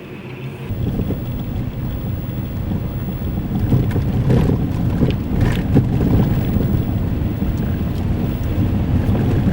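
Blizzard wind buffeting the microphone: a loud, gusting low rumble that sets in suddenly about a second in and grows louder.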